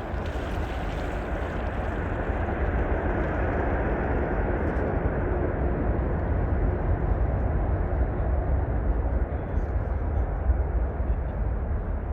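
Jet engines of an Antonov cargo aircraft on takeoff: a steady, loud rumble with a deep low end. It grows a little louder over the first few seconds, then holds.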